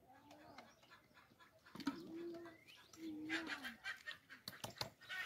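Pigeons cooing, a few low rising-and-falling coos, with a few sharp knocks near the end.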